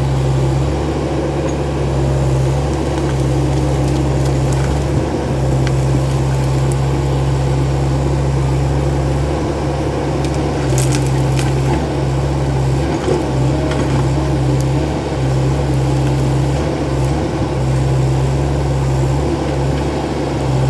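Kotrack KE70 crawler excavator's engine running steadily, a low drone with a few faint clicks around the middle.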